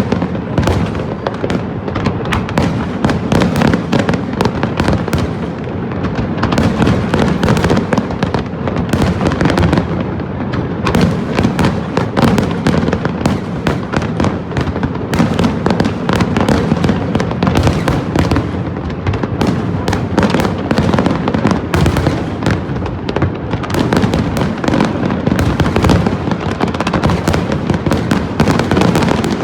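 Fireworks display going off continuously: a dense, unbroken run of bangs and crackling pops from many shells bursting at once, over a steady low rumble.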